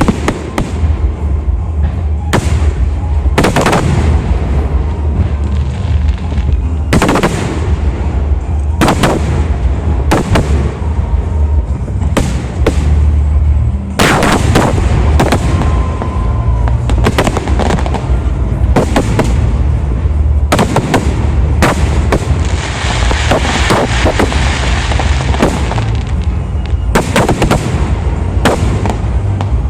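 Fireworks display: a steady run of loud shell bursts, often several close together, over a constant low rumble. A little past two-thirds of the way through comes a stretch of dense crackling.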